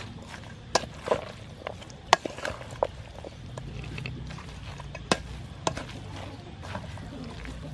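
Wooden spoon tossing a salad of shredded mango and sea snails in a stainless steel bowl, with a handful of sharp clacks at uneven intervals as the spoon knocks against the bowl.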